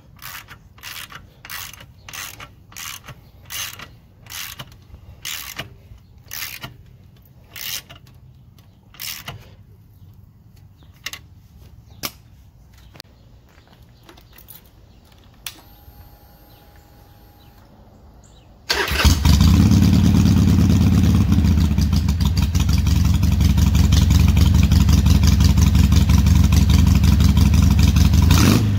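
A ratchet wrench clicks in steady strokes, about three every two seconds, as an exhaust clamp is tightened. About two-thirds of the way in, a Harley-Davidson Sportster's V-twin engine starts and idles loudly through a freshly fitted pair of Vance & Hines slip-on mufflers.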